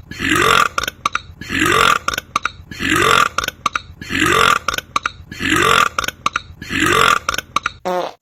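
A man belching loudly over and over: six big burps, evenly spaced about 1.3 seconds apart, each rising in pitch, with short clicks in between.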